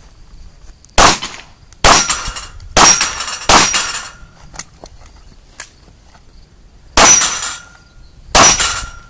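Six pistol shots during a shooting stage: four spaced under a second apart, a pause of about three seconds, then two more near the end. A thin metallic ring hangs after several of the later shots, from steel targets being hit.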